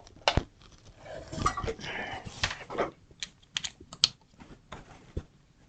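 Irregular clicks and taps of a computer keyboard, mixed with the rustle and knock of a USB cable and a controller being handled.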